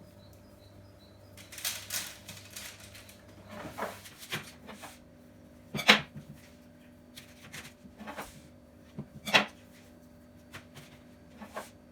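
Knife cutting through cookie dough and dough balls being set down on a baking tray: scattered knocks and taps, the two loudest about six and nine seconds in.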